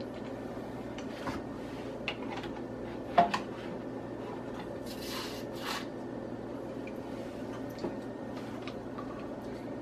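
Plastic meat-injector syringe being handled and refilled from a bowl of liquid marinade: light clicks and taps, a sharper knock a little after three seconds, and two short hissing sounds about five seconds in, over a steady low hum.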